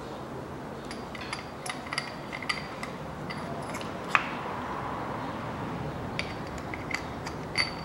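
Small metal clinks and taps as bucket valve lifters are set one by one into their bores in the cylinder head of a Toyota 1KR engine, with a sharper click about four seconds in and another near the end.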